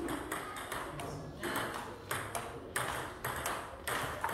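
Table tennis rally: the celluloid ball clicking back and forth off the bats and the table, about three sharp knocks a second.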